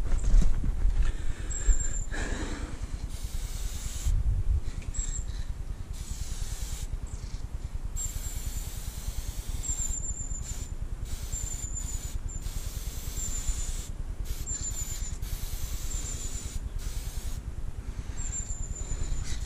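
Aerosol spray-paint can hissing in repeated bursts, each lasting from about half a second to two seconds, with short breaks between them.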